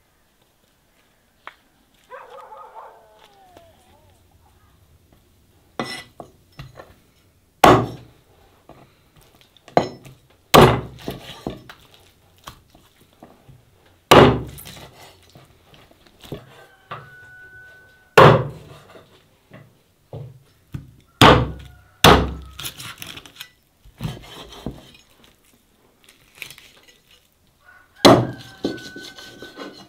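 Cleaver chopping a raw whole chicken into pieces on a wooden chopping board: about ten heavy single chops, each a sharp thunk, spaced a second to a few seconds apart.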